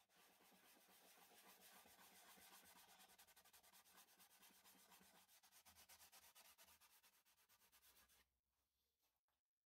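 Cloth rubbing shellac into a turned macrocarpa pine bowl: a faint, steady rubbing that stops about eight seconds in.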